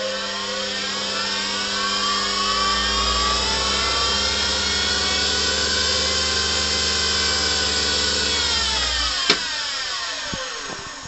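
Boxford 125 TCL lathe's spindle motor and belt drive spinning up, running at a steady speed, then winding down about nine seconds in, its whine sliding down in pitch. A sharp click sounds as it slows.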